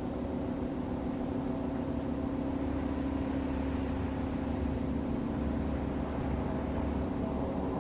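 Federal Signal 3T22A three-tone outdoor warning siren sounding a low, steady chord that slowly sinks in pitch as the rotor coasts down after its alert blast.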